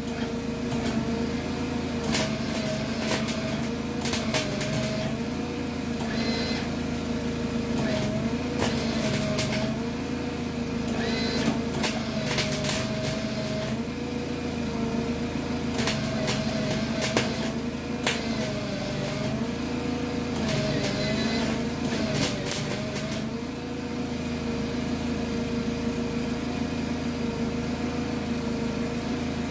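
Small 120-volt wire-feed welder arcing in about five separate bursts of crackle as the trigger is pulled and let go, over a steady hum. It is set to a higher heat to burn through rusty bus floor steel.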